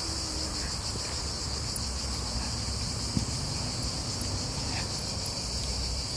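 Steady high-pitched insect chorus of summer crickets or cicadas, with a low rumble beneath it. A single brief knock about three seconds in.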